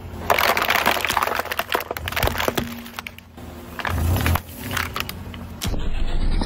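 Plastic crackling and crunching as a car tyre rolls onto a plastic water bottle and flattens it against asphalt, in several runs of sharp crackles.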